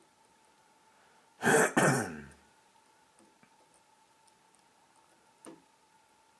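A person clearing their throat in two quick, loud bursts, the second trailing off. About three seconds later there is a single faint click.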